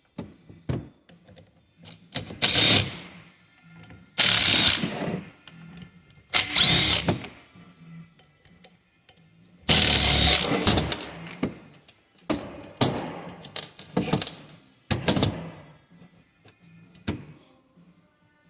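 Cordless power drill/driver running in several short bursts, backing screws out of a plastic automotive coolant valve housing.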